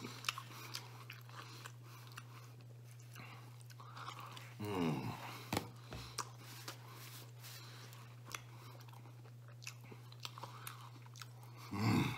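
A man chewing a mouthful of pizza crust close to the microphone: small wet mouth clicks and smacks, with a brief voiced sound about five seconds in and again near the end. A steady low hum runs underneath.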